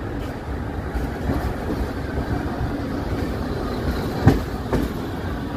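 Passenger train rolling slowly into a station: a steady low rumble of the wheels on the track, with two sharp clacks from the wheels near the end, the first the loudest.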